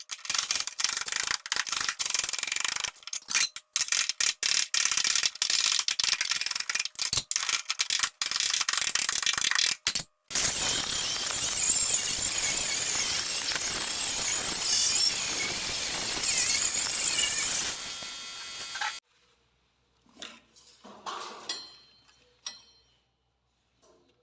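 A power tool working on a car door's sheet metal during dent repair, first in rapid stop-start bursts with sharp clicks for about ten seconds, then a steady run of about eight seconds that cuts off suddenly.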